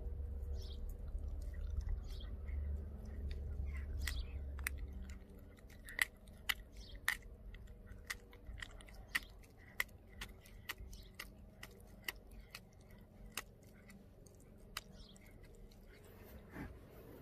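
A Pomeranian chewing a raw duck foot, with irregular sharp crunches and clicks, a few a second, thickest through the middle of the stretch.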